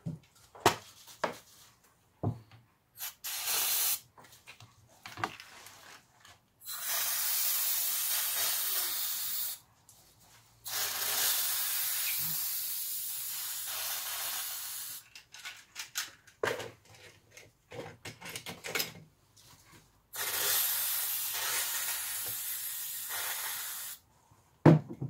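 Aerosol can of carburettor cleaner spraying to degrease reel gears and drag washers in a metal tin. There are a few short bursts first, then three long even hisses of several seconds each, with small knocks and clicks between them.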